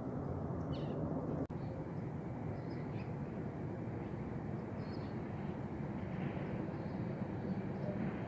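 Steady distant rumble of a Boeing 777-300ER jet airliner passing high overhead, with a few short bird chirps. The sound drops out for an instant about a second and a half in.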